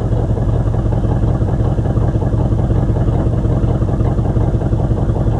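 A vehicle's engine running steadily, a constant low rumble with no change in pace.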